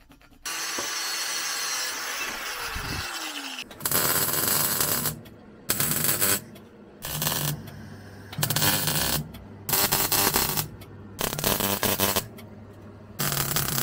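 A power cutter runs through the steel frame tube for about three seconds, its pitch falling near the end. Then come seven short bursts of arc-welding crackle, with a low hum between them, as the steel frame is tack-welded.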